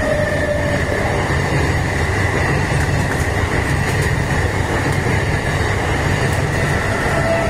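Indian Railways passenger coaches running past at speed: a steady rumble of wheels on rails, with a faint steady high whine over it.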